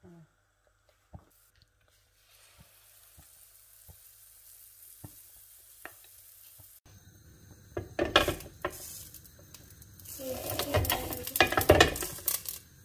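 Banana pancake batter being stirred and fried: a faint sizzle for the first several seconds, then louder spoon scraping and clatter against the bowl and pan, busiest near the end.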